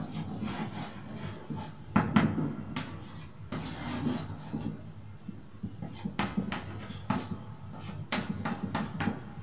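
Chalk writing on a blackboard: irregular scraping strokes and taps, the sharpest about two seconds in.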